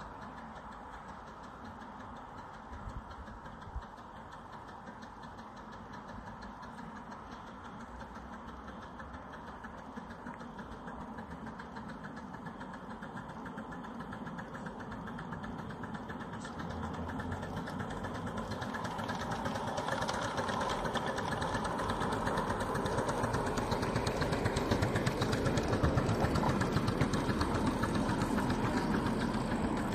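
Miniature passenger-carrying railway train approaching along the track and passing close by. Its locomotive running and its wheels on the rails grow steadily louder through the second half and are loudest near the end.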